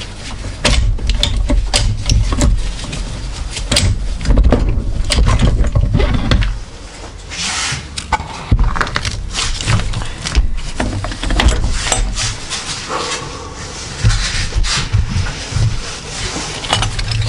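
Steel gear shafts of a Honda Prelude manual transmission clinking and knocking against each other and the case as the gear stacks are worked loose and lifted out, with irregular metallic clicks and handling knocks throughout.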